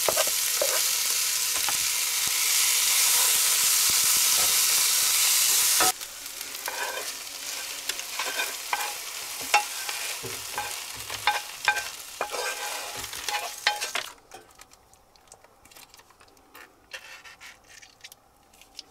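Potatoes, veggie dog slices and tomato sizzling in oil in a skillet while being stirred with a wooden spoon. About six seconds in the sizzle cuts off and the wooden spoon scrapes and knocks the food out of the pan onto a paper plate. Near the end, faint small clicks and crinkles of a sauce packet being squeezed.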